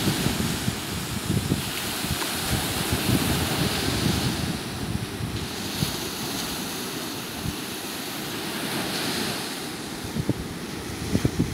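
Small sea waves breaking and washing up a sandy beach, the surf swelling and fading every few seconds, with wind buffeting the microphone in a low, gusty rumble.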